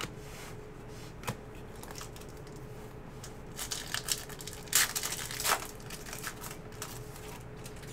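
Foil wrapper of a 2018 Donruss Elite football card pack being torn open and crinkled by hand, in a run of irregular rustling tears through the middle, loudest past halfway. A single light tap comes about a second in.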